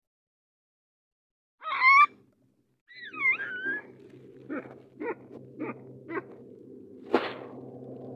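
Baboon giving two high, wavering calls, followed by four short taps about half a second apart and a sharp knock, over a low steady hum.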